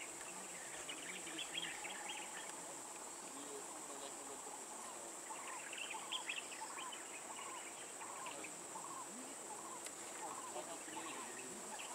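Faint outdoor ambience. Insects drone steadily in a high, even band, with scattered bird chirps, and a short call repeats roughly every half second through the middle and latter part.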